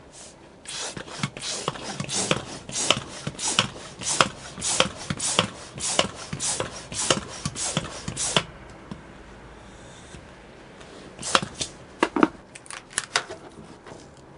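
Hand pump inflating a heart-shaped latex balloon: quick, even air strokes, about three a second, that stop after about eight seconds. A few seconds later come several short rubbery squeaks and clicks as the balloon neck is worked onto its plastic stick.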